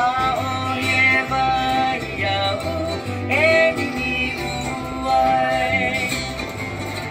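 Hawaiian hula song: a singer whose voice slides up into the notes, over plucked-string accompaniment and a stepping bass line.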